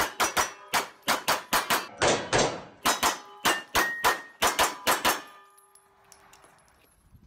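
A handgun fired in fast strings of shots, about twenty in five seconds, with the steel targets clanging as they are hit. The ringing of the steel hangs on for about a second and a half after the last shot.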